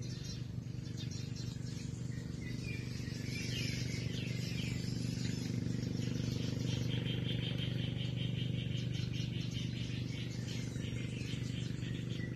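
Birds chirping and twittering, with a run of quick repeated chirps partway through, over a steady low mechanical hum.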